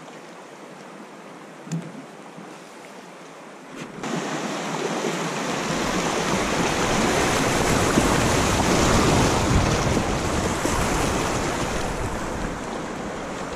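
Rushing water of a shallow river rapid as a kayak runs down it. Quiet water with a single light knock at first, then about four seconds in the rush comes up suddenly, swells, and eases off near the end as the kayak reaches calm water.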